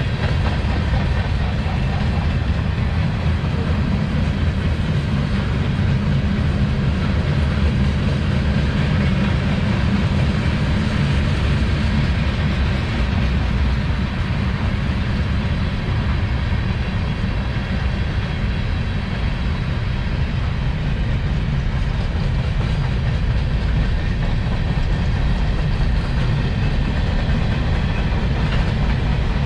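CSX manifest freight train rolling past: a steady rumble and clatter of its wheels on the rails.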